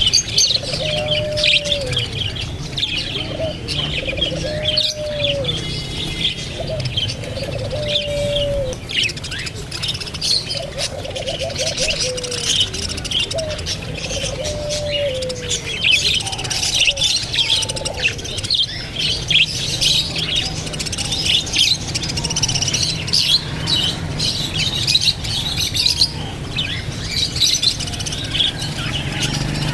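A flock of parrots chirping and tweeting continuously in many quick high calls. Through the first half, a lower drawn-out call ending in a downward glide repeats about once every one to two seconds.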